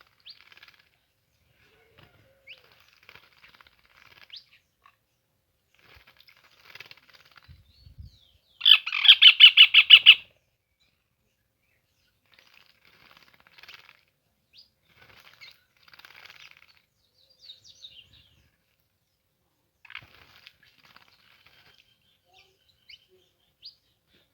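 Small birds bathing, with faint wing fluttering and scattered chirps throughout. About nine seconds in, one loud, rapid run of call notes, about seven or eight a second, lasts a second and a half.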